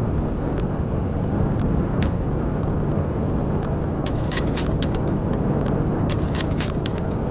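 Wind rumbling on the microphone and tyre noise from a road bike riding along a paved path, steady throughout. Two short clusters of sharp ticks come about four and six seconds in.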